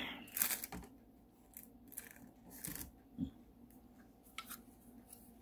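Handling noises as a clip is fetched and fitted to hold a light pad: a brief rustle, then a few scattered light clicks.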